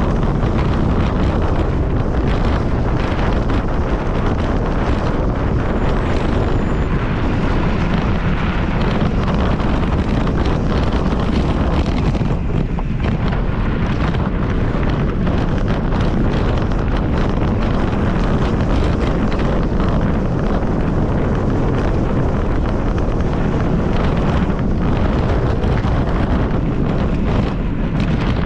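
Steady wind rush buffeting the microphone of a camera on a mountain bike ridden at race pace.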